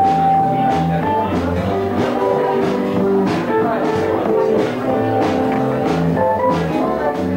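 Instrumental music with a bass line, held melody notes and a steady beat.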